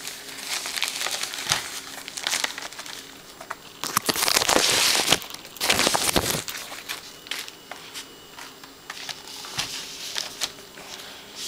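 Plastic packaging wrap crinkling and rustling as it is pulled off a laptop, with a continual crackle and two long, louder bursts of rustling in the middle.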